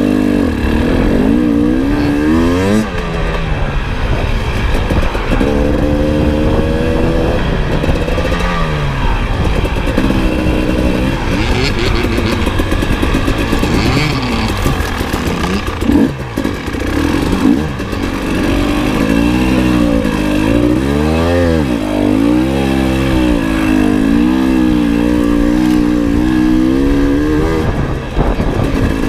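KTM 300 two-stroke dirt bike engine revving up and down as the throttle is worked on a trail ride, the pitch rising and falling every second or two, with a few quick chops off the throttle.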